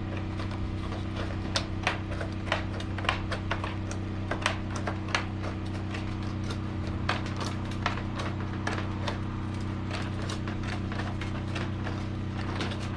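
Hammer driving nails into wooden framing by hand: irregular sharp taps, several louder blows in the first half, over a steady low hum.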